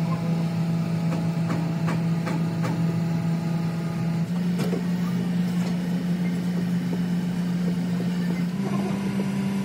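Steady low engine or motor hum running throughout, stepping slightly higher in pitch about four seconds in and again near the end, with a few light knocks in the first few seconds.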